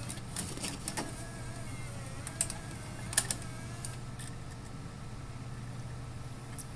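Bose in-dash six-CD changer mechanism clicking several times, with a faint wavering whir in the middle as it moves between disc slots, over a steady low hum.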